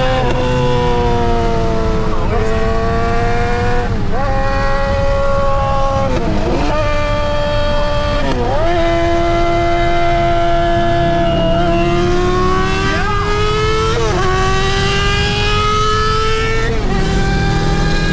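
Engines of a Dodge Charger Scat Pack with its 392 V8 and a Suzuki GSX-R600 inline-four sport bike running hard side by side, heard from inside the car. The engine note climbs with speed, then drops sharply and climbs again several times as gears change, most clearly about eight and a half seconds in.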